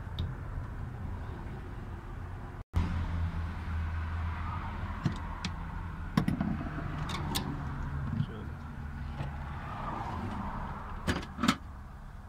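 Scattered sharp clicks and knocks of plastic connectors and fuel line fittings being handled on a car's in-tank fuel pump module, the loudest two close together near the end, over a steady low hum.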